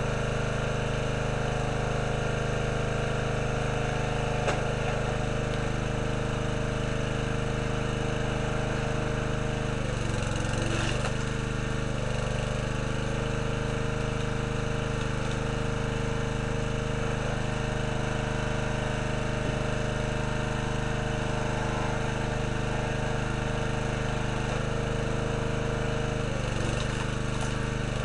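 Small gasoline engine of a hydraulic log splitter running steadily, its note sagging briefly about ten seconds in.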